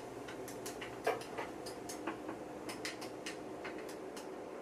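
Irregular light clicking, about three clicks a second with one louder click about a second in, over the steady hum of an IMSAI 8080 and its floppy disk drives. It is the machine's sound during a failed CP/M boot with the Z80 card overclocked to 4 MHz, too fast for the disk drives to keep up.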